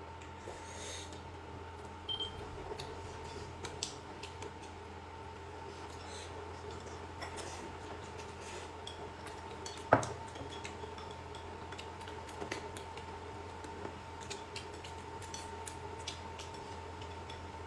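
Eating sounds: scattered light clicks and clinks of chopsticks and tableware against dishes, with one sharper knock about ten seconds in, over a steady faint hum.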